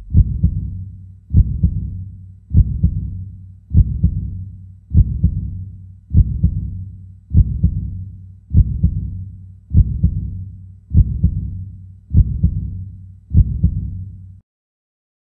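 A deep, low thud sound effect repeating at an even pace, about once every 1.2 seconds, twelve times, each hit fading away slowly. The beats stop about a second before the end, leaving silence.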